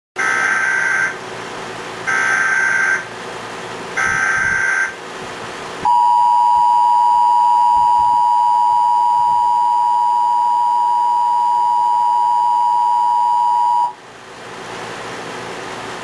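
Emergency Alert System test tones: three one-second bursts of the SAME digital header, about two seconds apart. Then comes the EAS two-tone attention signal, held steady and loud for about eight seconds, which cuts off sharply into faint hiss.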